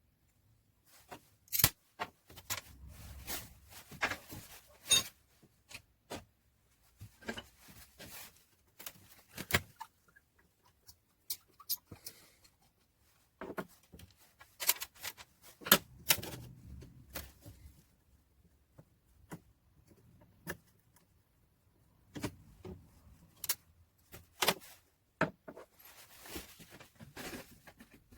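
Irregular metal clinks, clicks and knocks as the parts of an old hand drill are handled on a workbench, with short pauses between them.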